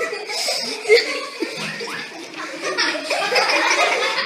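Students laughing and chuckling, with some chatter mixed in, the laughter swelling in the second half.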